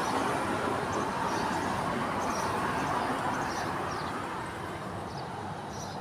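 Steady rumbling noise of passing vehicles, with faint, short high chirps of small birds now and then.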